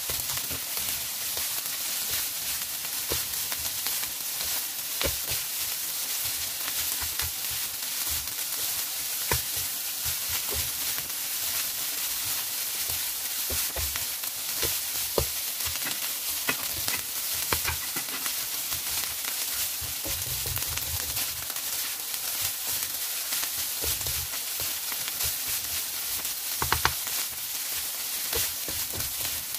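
Egg-coated rice stir-frying in oil in a pan: a steady sizzle, with scattered clicks and scrapes as a slotted spatula tosses the rice against the pan while it fries to golden.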